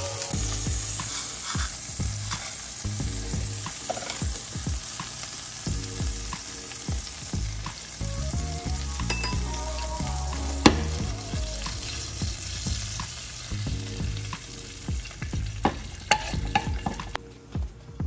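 Hot oil sizzling and crackling over chilies, with a sharp knock about ten seconds in. The sizzle dies away about a second before the end.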